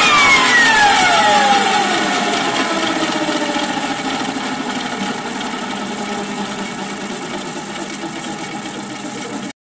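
Radio-controlled model helicopter's motor and rotor drive winding down, heard from inside the model: several whining tones fall in pitch over the first couple of seconds, then a whir with rattle fades steadily and cuts off abruptly near the end.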